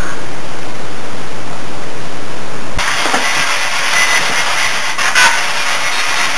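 Loud, steady hiss of heavily amplified recorder noise, played back as a purported spirit voice (EVP). About three seconds in it changes abruptly to a brighter hiss with a few faint, brief sounds in it; no clear words stand out.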